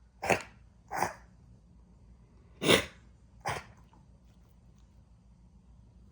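A dog coughing four times, in two pairs a little under two seconds apart. The cough comes from aspiration pneumonia.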